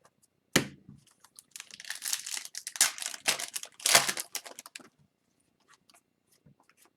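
Hockey cards and their packaging being handled on a table: a single knock about half a second in, then a few seconds of crinkling, rustling handling noise that stops about halfway through.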